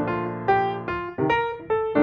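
Background piano music: a melody of separate notes struck one after another over held tones.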